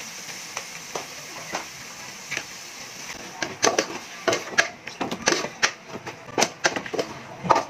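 Meat pieces sizzling faintly in an aluminium pot. From about three seconds in, a wooden slotted spatula stirs them, with quick clacks and scrapes against the pot.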